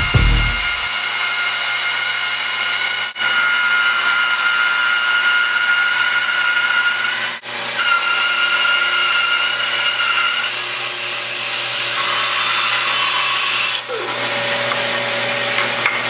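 A power tool running with a steady high whine. It dips briefly three times, and its tone shifts slightly after each dip.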